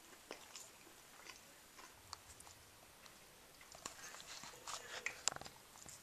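A long-haired grey cat grooming itself close to the microphone: faint, scattered wet licking clicks that grow thicker and louder in the second half, the loudest click just after five seconds in.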